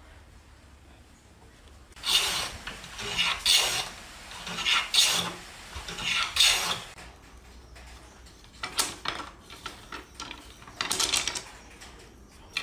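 Hand plane taking shavings off the edge of a thin board clamped in a bench vise: a series of strokes starting about two seconds in, then a pause and a second, shorter run of strokes.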